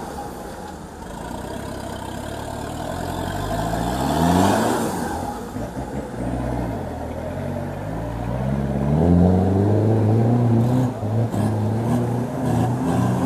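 Off-road 4x4's engine revving up and down under load, climbing to a peak about four seconds in, dropping back, then held at higher revs from about nine seconds on. A few sharp knocks sound over it near the end.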